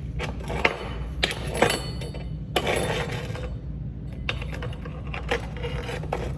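Irregular metallic clinks, knocks and scrapes of small steel pieces being handled on a work surface, the loudest about two and a half seconds in, over a steady low hum.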